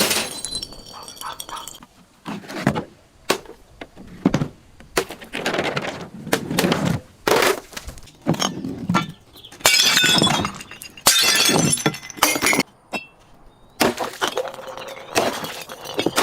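Glass bottles being crushed: a series of crunches and cracks of breaking glass, some short, some drawn out, with brief high tinkling of shards between them.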